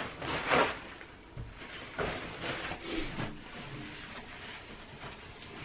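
Rustling and crinkling of a large sheet handled in gloved hands, in a few short bursts.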